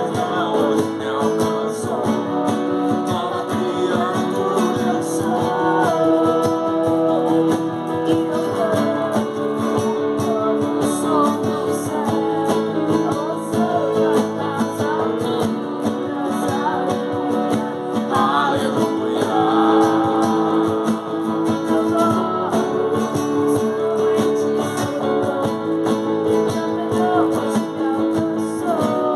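Worship song played on strummed acoustic guitar, a steady rhythmic accompaniment of sustained chords.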